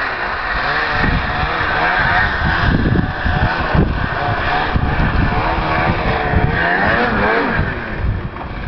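Snowmobile engine revving up and down as the machine rides and climbs over snow, its pitch rising and falling again and again.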